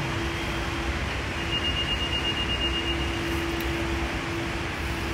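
Steady background noise of an airport waiting area: a constant hiss and rumble with a low, even hum, and a faint high tone for a second or so about a third of the way in.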